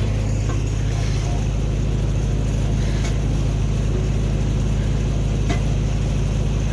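An engine running steadily at constant speed, with a couple of faint ticks over it.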